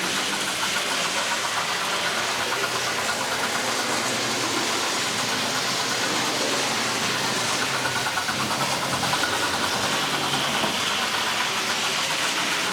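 Sound box in the tender of a Hornby 4-6-0 model steam locomotive playing steady simulated steam-engine sounds as the model train runs on its track.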